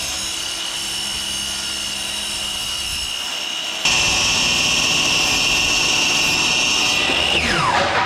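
Electric mitre saw running at full speed with a steady high whine. About four seconds in it gets louder and harsher as the blade cuts through a laminate floorboard, then the trigger is released and the whine falls in pitch as the blade winds down near the end.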